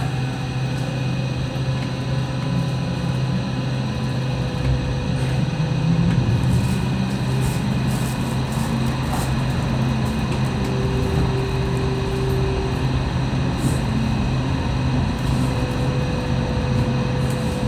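Hong Kong Light Rail tram running along its track, heard from inside the car: a steady low hum with rail noise. A faint higher whine comes in briefly about halfway through and again near the end.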